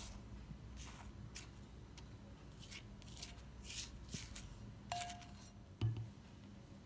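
Flour being scraped out of a glass bowl with a silicone spatula, a series of short scratchy strokes. About five seconds in there is a brief glassy clink, then a thump just before six seconds, the loudest sound, as a bowl is set down.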